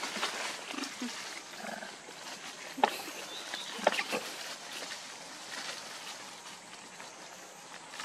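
Long-tailed macaques making short, scattered grunts and squeaks. The sharpest come about three and four seconds in.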